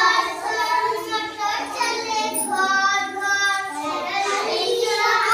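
Young children singing a song together, with a few longer held notes partway through.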